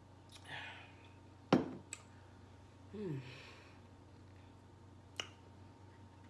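A person sighs with a falling, pitched "mmm" while eating, after a short breath. A sharp knock about one and a half seconds in is the loudest sound, followed by a few small clicks.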